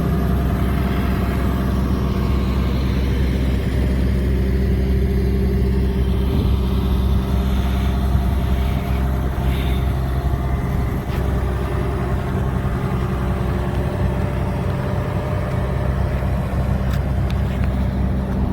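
Caterpillar 330DL crawler excavator's diesel engine running steadily.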